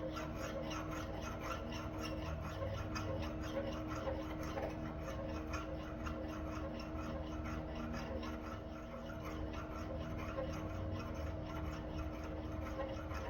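Rhythmic hand-filing strokes on metal, several a second, over a steady low hum.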